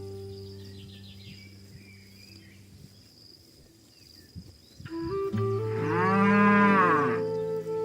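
A cow mooing once, a long call that rises and then falls in pitch, about five and a half seconds in. Background music fades almost away beforehand and comes back just before the moo.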